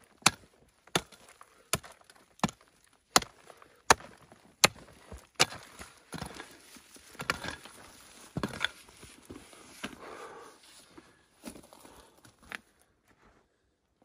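A small pick-mattock striking hard, stony ground, one sharp blow about every three-quarters of a second for the first five seconds or so. The blows then give way to softer scraping and loosening of dirt, with a few more strikes, before stopping near the end. The ground is very hard.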